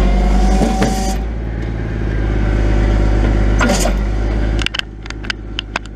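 A heavy grapple truck's diesel engine running steadily, with a brief whine in the first second. About five seconds in the engine sound drops away and a few sharp clicks and knocks follow, from the camera being handled.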